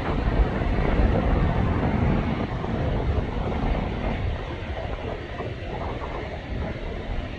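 Deep, steady rumble of an Airbus A380's four jet engines at takeoff power, loudest about a second in and then slowly fading.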